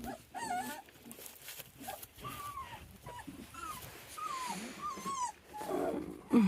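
Young livestock guardian dog puppies whining and squeaking: a string of short, high cries that rise and fall, one after another, with a louder, lower cry near the end.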